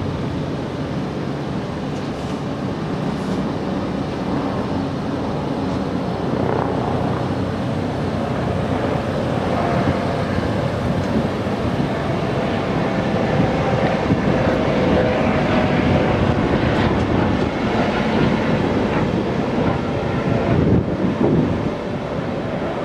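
ÖBB Railjet passenger coaches rolling past along the platform: a steady rumble of wheels on rails that grows a little louder in the second half as the driving trailer goes by.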